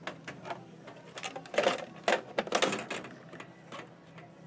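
Hard plastic and metal clicking and knocking as an MP6200 scanner-scale is handled and settled into its metal well in the checkout counter. A run of light clicks, with a few louder knocks in the middle.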